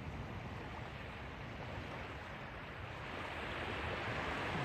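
Small waves washing onto a sandy beach, growing louder toward the end.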